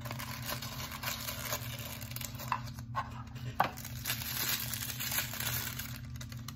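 Tissue paper rustling and crinkling as a bottle is unwrapped from a small cardboard box, with a few light clicks and taps in the middle.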